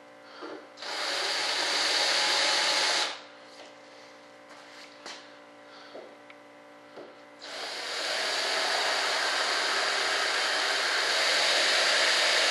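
Power drill boring shallow holes into a fiberglass mold flange, running in two bursts: about two seconds, then a longer run of about five seconds near the end. A few light clicks fall in the pause between.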